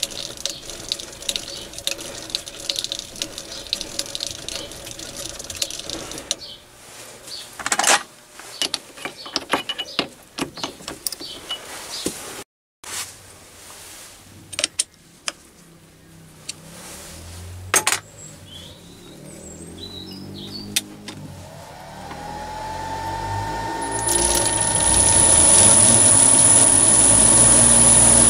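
Small metal clicks and scrapes of hand work on a metal lathe's cross slide. Then the lathe starts up: its motor whine rises in pitch over a few seconds and settles into a loud, steady run with a thin high whine, the chuck spinning.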